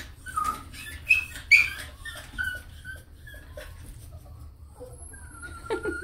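A dog whining in a string of short high-pitched calls, two of them louder yelps about a second in, then a longer drawn-out whine near the end.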